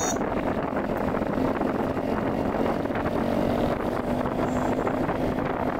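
Steady wind buffeting on the microphone of a moving Royal Enfield Himalayan motorcycle, with the bike's single-cylinder engine running beneath it.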